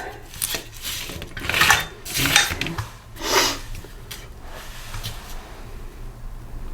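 Metal hand tools and engine parts clinking and clattering as a bolt is worked loose: four short metallic clatters in the first three and a half seconds, then only faint handling noise.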